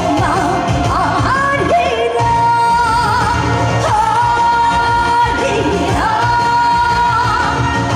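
Live trot song: a woman singing over musical accompaniment, holding long notes.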